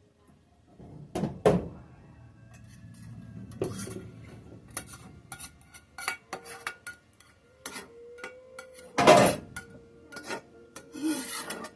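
Cooking pan and pot clanking, with a utensil scraping, while sautéed onions and garlic are scraped into a pot of mashed potatoes. There are irregular knocks and scrapes: two sharp knocks a little over a second in and the loudest clatter about nine seconds in.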